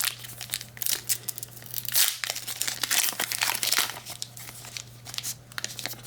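Foil wrapper of a trading-card pack crinkling and tearing as it is handled and opened, with irregular crackles that are busiest a couple of seconds in. A steady low hum runs underneath.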